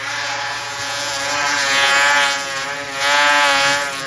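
Snowmobile engine running hard at high revs, its pitch wavering slightly and swelling twice, then cutting off suddenly at the end.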